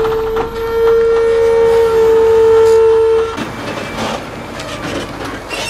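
A single loud, steady held tone for about three seconds that cuts off abruptly, followed by the rough, rattling running noise of a loaded log truck crawling along a rough mountain track.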